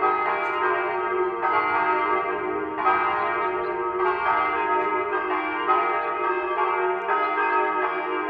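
Church bells ringing steadily, a new stroke about every second and a half, each one still ringing as the next sounds.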